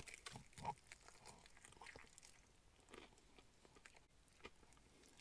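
A person faintly chewing a mouthful of fried chicken, with scattered soft mouth clicks.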